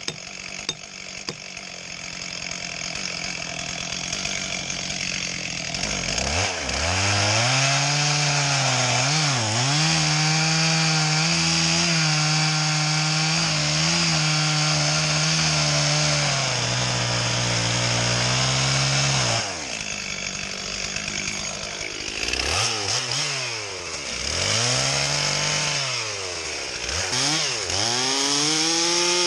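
Stihl two-stroke chainsaw cutting through a fallen hickory trunk. Quieter for the first few seconds, it comes up to full throttle about six seconds in and holds there for over ten seconds, the note sagging slightly as the chain bites. It drops back around two-thirds of the way through, is revved up and down several times, and runs at full throttle again near the end.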